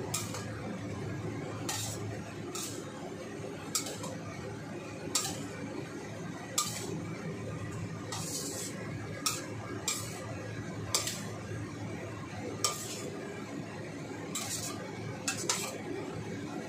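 Metal spatula scraping and clinking against a stainless steel wok as noodles and vegetables are stir-fried, with a sharp clink about once a second at uneven intervals over a steady low hum.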